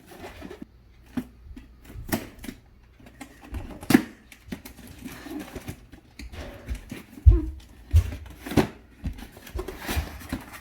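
A cardboard toy box and its packaging being opened and handled by hand: irregular clicks, taps and light rustling, with two heavier thumps a little past the middle.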